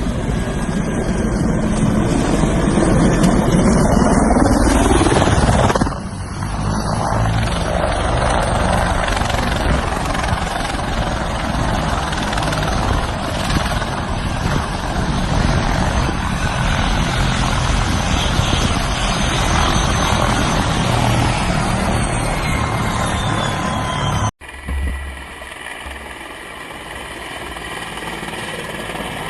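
Helicopter rotor and engine noise, loud and steady, from several clips joined together: the sound changes abruptly about six seconds in, and near the end it drops off suddenly and returns quieter.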